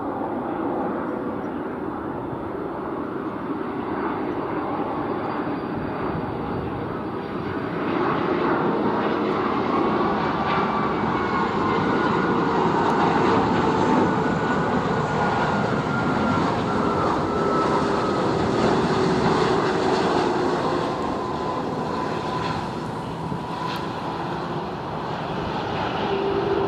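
Airbus A330-200 jet airliner on final approach and passing overhead. Its engines give a steady rush with a whining tone that slides slowly down in pitch. The sound swells about eight seconds in and grows louder again near the end as the aircraft reaches the runway.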